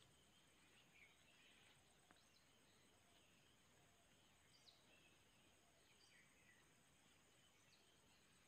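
Near silence: faint outdoor ambience with a few faint, short bird chirps scattered through.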